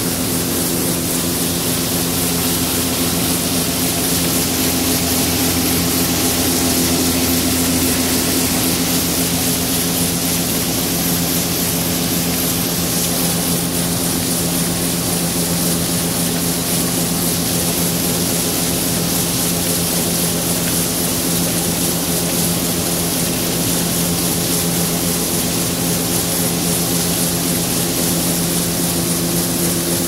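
Combine harvester running steadily while its unloading auger pours soybeans into a grain truck: a constant machine drone with several steady hums over a broad hiss.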